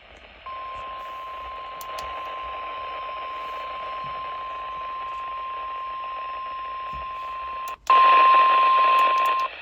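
NOAA Weather Radio 1050 Hz warning alarm tone, one steady unbroken tone over radio static. It cuts out for a moment near the end and comes back louder before stopping. The tone signals that a weather warning is about to be read, here a severe thunderstorm warning.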